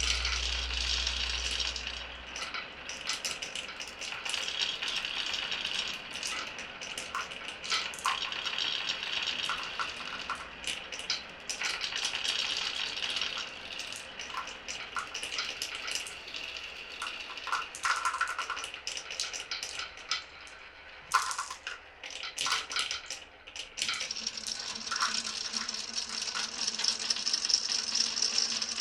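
Marbles rolling and clattering along a wooden marble run, with a dense run of irregular clicks as the balls strike and drop through the track pieces. A low hum stops a couple of seconds in, and near the end a steadier rolling sound takes over.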